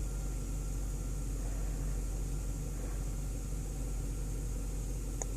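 2005 Chevy Tahoe's V8 engine idling steadily just after a push-button start.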